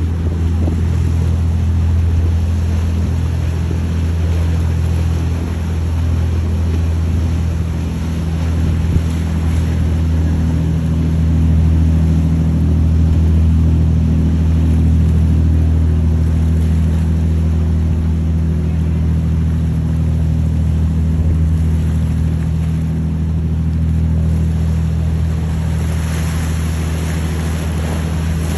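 Sport-fishing boat's inboard diesel engines running at a steady cruising speed, a deep, even drone. Near the end the rush of water from its wake grows louder.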